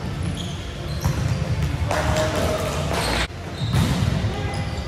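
Volleyball play in a gym: the ball thudding off hands and floor, short high squeaks of shoes on the court, all echoing in the hall. The sound drops out abruptly about three seconds in, then resumes.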